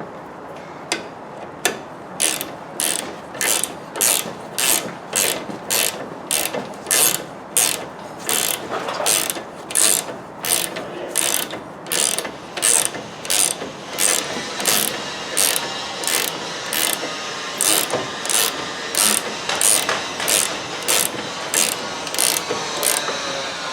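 Hand ratchet wrench worked back and forth while tightening suspension bolts. A quick burst of pawl clicks comes on each return stroke, about every 0.7 seconds, starting about a second in.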